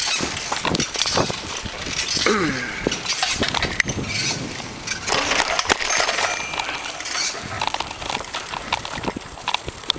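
Bicycle with a wire front basket rattling and clinking as it is ridden over pavement, with many short knocks and a brief falling squeak about two seconds in.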